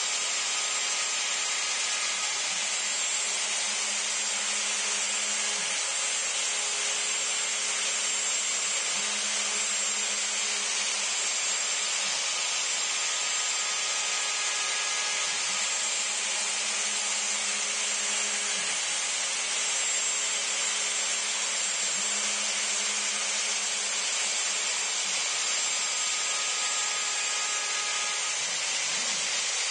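A CNC router spindle runs steadily with a high whine while its 90-degree V-bit carves grooves in cedar fence board. Under it, a lower hum starts and stops every three to four seconds.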